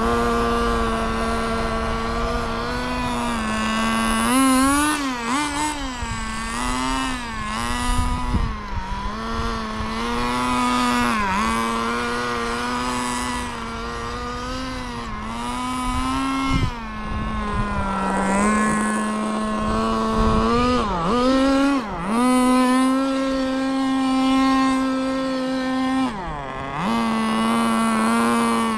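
Kyosho FW06 1/10 nitro touring car's small glow engine running at high revs while the car is driven. Its pitch keeps dipping as the throttle is eased and climbing again under acceleration, with a few deep drops and recoveries in the second half.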